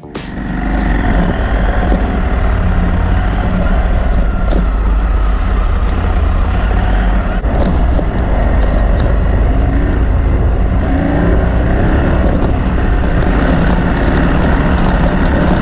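Adventure motorcycle riding at a steady pace, with engine rumble and rushing wind noise on the on-bike camera's microphone.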